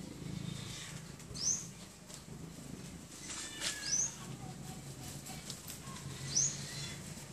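A bird gives a short, high, upward-sweeping chirp about every two and a half seconds, three times, over a low steady hum.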